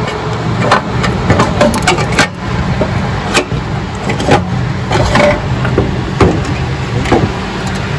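A steady low machine hum with irregular sharp clicks and knocks over it.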